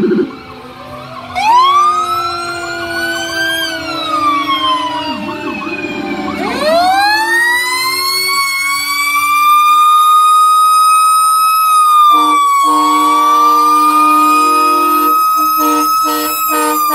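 Fire truck sirens. One siren wails, rising, slowly falling, then rising again to hold a high steady pitch, with a faster warbling siren briefly beneath it. A steady low horn-like tone joins about twelve seconds in.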